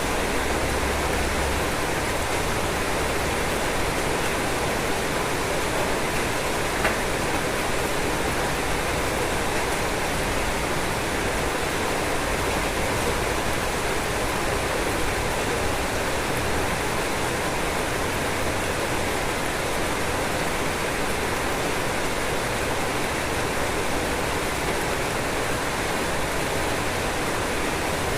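Rain falling steadily on a roof, an even hiss with no let-up, and a single small tick about seven seconds in.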